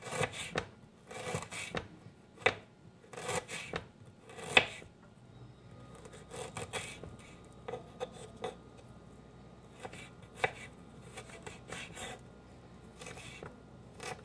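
Knife slicing fresh ginger root into thin matchsticks on a wooden cutting board, in short runs of quick strokes that grow quieter after about five seconds.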